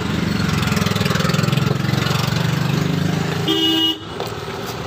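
A motor vehicle engine running steadily close by, then a short horn toot about three and a half seconds in, after which the engine sound falls away.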